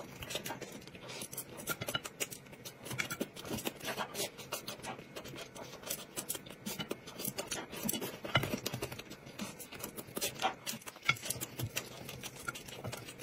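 Close-up eating sounds: chopsticks tapping and scraping on a ceramic plate, with chewing, heard as many small, quick, irregular clicks.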